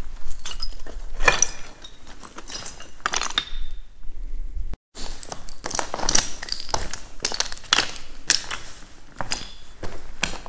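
Footsteps crunching over loose broken slate on a mine floor, the flat slate pieces clinking and scraping against each other at every step in an uneven rhythm.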